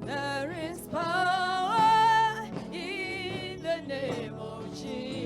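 Gospel worship song sung by a solo voice over steady instrumental backing, the melody rising to a loud held note with vibrato about two seconds in.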